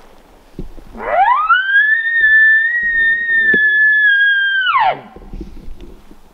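An elk bugle: one long, loud whistle that rises steeply about a second in, holds high and steady for about three seconds, then drops off sharply.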